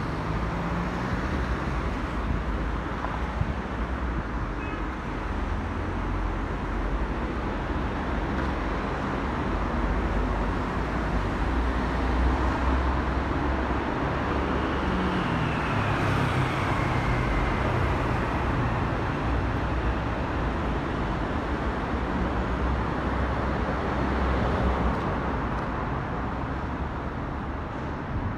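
Steady road traffic: cars driving past on a multi-lane road. About halfway through one vehicle passes close, its pitch falling as it goes by.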